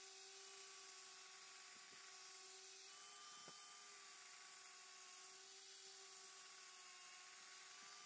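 Faint, steady whine of a power tool spinning a surface prep pad, an abrasive Scotch-Brite-type wheel, to clean rust off a hydraulic cylinder rod.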